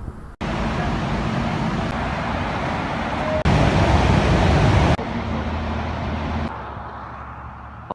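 Running water: a steady rushing hiss that starts abruptly, jumps louder for about a second and a half in the middle, then drops back and weakens before cutting off.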